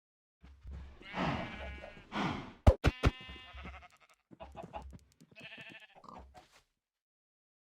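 An animal bleating in a series of quavering calls, with three sharp clicks near the middle that are the loudest sounds.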